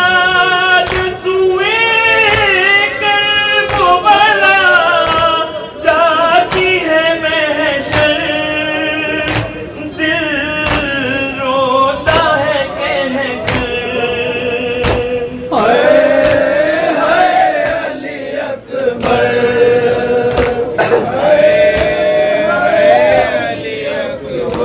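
Male voice singing a Shia noha (mourning lament) through a microphone. Sharp slaps at a steady pace of about one every three quarters of a second keep time; these are the mourners' chest-beating (matam).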